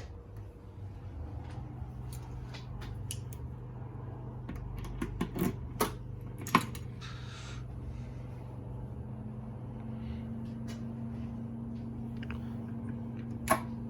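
Switches on an electric home-brewery control panel clicking several times over a steady low electrical hum, with a second steady hum starting about two-thirds of the way in. The panel powers up without its earlier buzz, the fault having been traced to bad connections.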